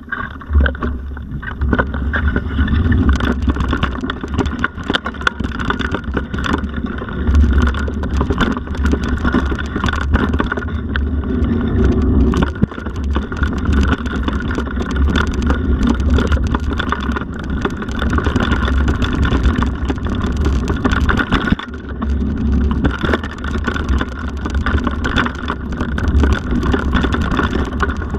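Handlebar-mounted camera on a mountain bike riding an off-road forest trail: wind buffeting the microphone, with the tyres running over dirt and rock and frequent short rattles and knocks from the bike jolting over bumps.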